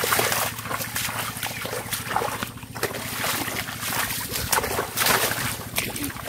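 Repeated irregular splashing in shallow, muddy water as a large catfish thrashes and boys grab at it by hand.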